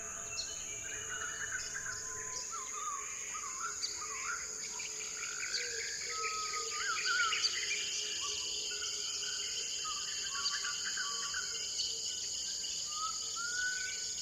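Jungle ambience: a steady high-pitched insect drone, with many birds calling over it in short chirps and whistled rising and falling notes.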